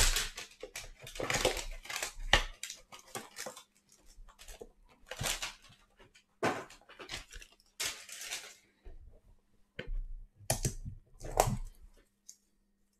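Cellophane wrap crinkling and tearing as it is stripped off sealed trading-card hanger boxes, in irregular bursts. There is a lull about nine seconds in, then two more bursts.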